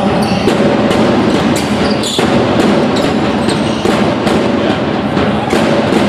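Basketball game noise in a sports hall: a basketball bouncing on the court as a string of irregular sharp knocks over a constant loud din, with music playing.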